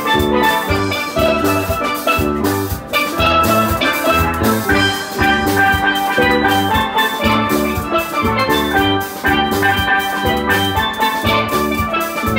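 Steel drum band playing: several steel pans ringing out melody and chords over electric bass and a drum kit keeping a steady beat.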